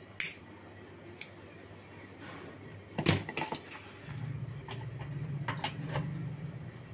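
Clicks and light knocks of wires and a plastic mains charger being handled on a workbench, with a louder clatter about three seconds in. A low steady hum comes up about a second later.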